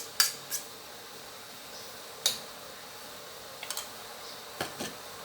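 A kitchen utensil clicking and knocking against a pot a few times, with pauses between: the sharpest knock about two seconds in, and a small cluster of clicks near the end.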